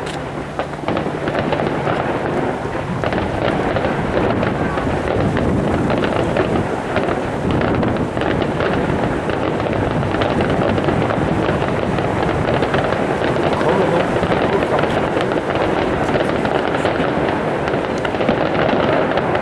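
Fireworks display: many overlapping bursts and crackles in a dense, continuous barrage with no let-up.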